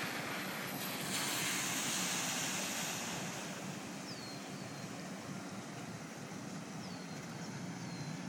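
Cars driving slowly through about a foot and a half of tidal floodwater: a steady hiss of tyres and spray over a low engine hum. The hiss is loudest for the first few seconds, then eases.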